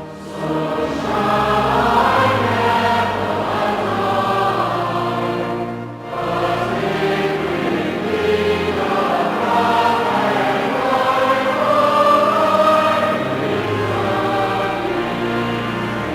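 Choir singing a hymn in sustained phrases over a low held bass, with a short breath between phrases about six seconds in.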